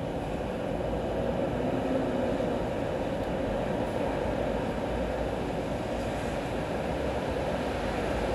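Steady, even rushing noise of rain and city traffic on wet roads below, a low hum with no distinct events.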